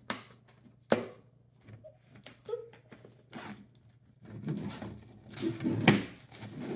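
A few sharp clicks and taps from a metal tin being handled, then, from about four seconds in, a dense crinkling and tearing as the clear plastic shrink wrap is peeled off it.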